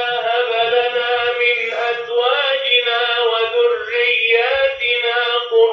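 Recorded Arabic recitation of a dua: one voice chanting in long held, gliding notes, played through the small speaker of an electronic children's prayer mat.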